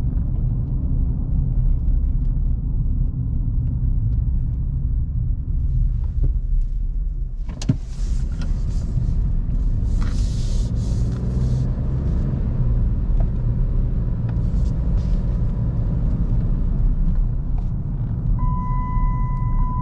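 Steady low rumble of road and engine noise inside a moving vehicle. There is a sharp click about eight seconds in, and a steady high beep-like tone comes in near the end.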